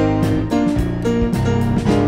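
Electronic keyboard playing gospel praise music: sustained chords over a bass line, the notes changing every half second or so.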